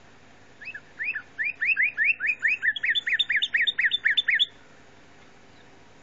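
Northern cardinal song played from a laptop: a run of clear, upward-slurred whistles, about four a second. From about halfway through, the notes climb higher, and the run stops about four and a half seconds in.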